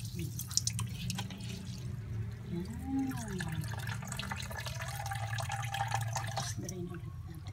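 Water dripping and trickling as rinsed, boiled elbow macaroni drains in a strainer, with scattered light clicks over a steady low hum. A short whine rises and falls about three seconds in.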